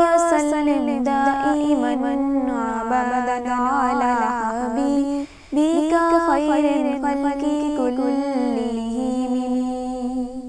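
A solo voice singing a drawn-out, wordless melody without instruments, as in unaccompanied naat singing, holding long notes that waver around the middle. It breaks off briefly about five seconds in, then carries on.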